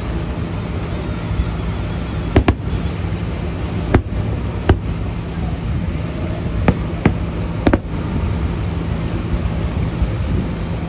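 Aerial firework shells bursting in the distance, about seven sharp bangs at uneven intervals, some in quick pairs, over a steady low rumble.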